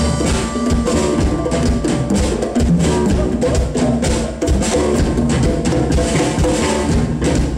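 Music with drums and percussion, a busy beat playing continuously with pitched instruments underneath.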